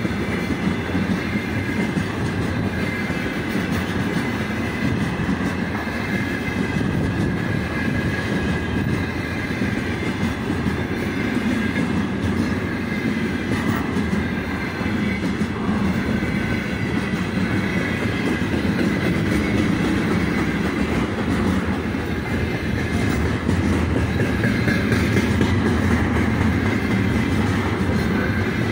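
A freight train of loaded container flatcars rolling past close by: a steady, continuous rumble of steel wheels on the rails, with a faint high ringing above it that gets a little louder near the end.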